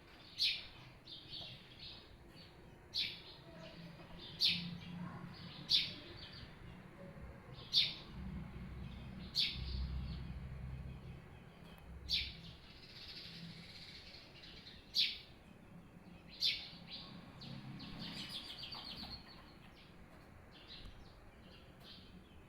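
Small birds chirping: short, sharp chirps come every second or so, with a quick run of chirps about three-quarters of the way through.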